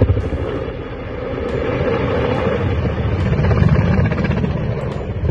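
UH-60 Black Hawk helicopter flying overhead: rapid rotor chop over turbine-engine noise, dipping about a second in and then growing louder again.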